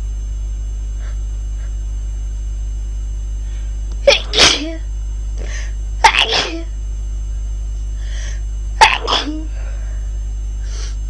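A person sneezing three times, two to three seconds apart, each sneeze a sharp loud burst that trails off quickly, with faint short breaths in between.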